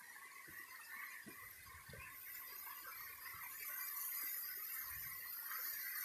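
Footsteps on a stony dirt path, a few soft irregular thuds, over the faint steady rush of a waterfall that grows slowly louder.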